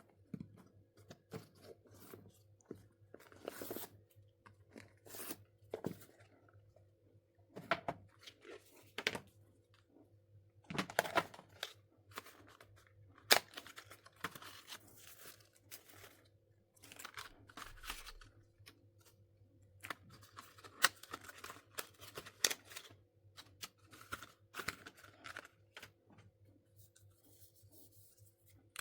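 Phone packaging being handled and opened: paper or plastic seals tearing, with scattered rustles and sharp clicks of the box, over a faint steady hum.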